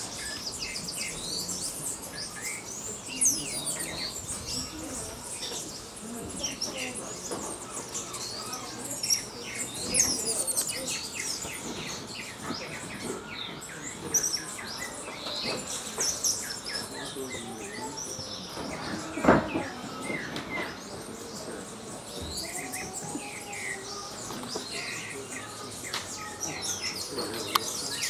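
Many small birds calling at once: a steady stream of short, high chirps and whistles. One brief sharp knock comes about two-thirds of the way through.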